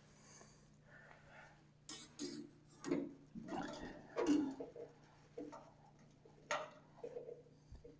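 Scattered light clicks and knocks, about a dozen over several seconds with the loudest about four seconds in: a measuring tool being repositioned against the sawmill's metal head and bunk while checking the head's height. A faint steady hum sits underneath.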